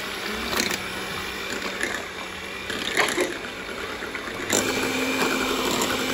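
Electric hand mixer running, its beaters whisking eggs and sugar in a glass bowl, with a few knocks. About four and a half seconds in, its hum steps up higher and louder.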